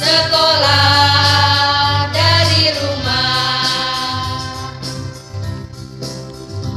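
A song in which several women's voices sing together over a backing track with a pulsing bass and a steady beat.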